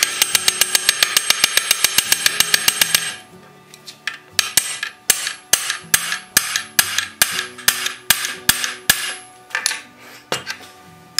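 Hammer blows on the iron shoe of a wooden sled runner: rapid ringing metal strikes, about seven a second, then about three seconds in a switch to slower, lighter blows, about two or three a second, as the bolt heads in the shoe are set and peened. Faint background music underneath.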